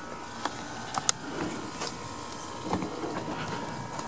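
Scattered light clicks and knocks from handling, over a faint steady hum.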